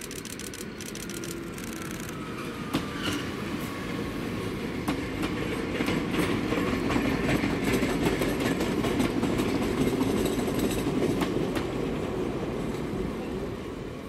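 Chichibu Railway 7000 series electric train passing close by, with wheels clicking over rail joints. It builds to loudest as the cars go past in the middle, then fades away near the end. A faint falling whine can be heard in the first few seconds.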